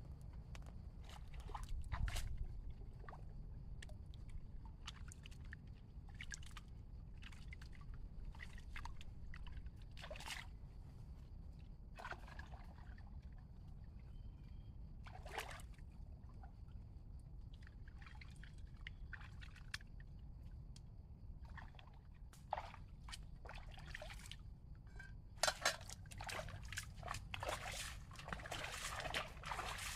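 Water sloshing and splashing in scattered small splashes and trickles, getting busier near the end, over a low steady rumble and a faint, steady high-pitched tone.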